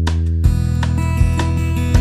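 Background music led by a strummed guitar, over a steady low beat.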